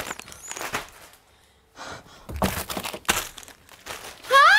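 Crinkling and rustling of plastic food wrappers and packets being pulled out and handled, in several bursts. A short, sharp vocal exclamation comes near the end.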